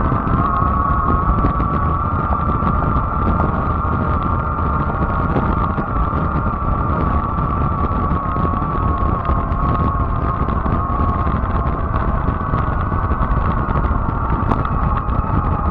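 Fat-tire electric bike riding over a gravel trail: a steady high motor whine over the rumble and crunch of the wide tyres, with wind on the microphone.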